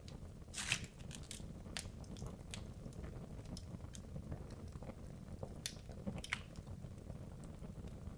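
Wood logs burning in a fireplace: irregular sharp crackles and pops over a low, steady rumble of the flames, the loudest pop a little over half a second in.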